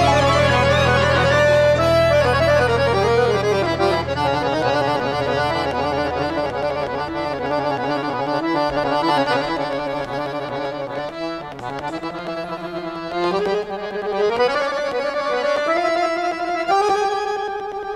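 Tango-jazz ensemble recording led by a bandoneon playing sustained reedy chords and a moving melody over a deep bass. The bass drops out about halfway through, and near the end the line climbs steadily in pitch.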